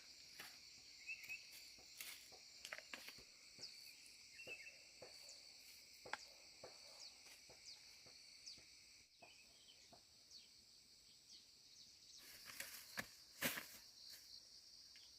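Faint, steady chorus of insects, with scattered light clicks and crackles, a few short chirps, and a louder crackling rustle near the end.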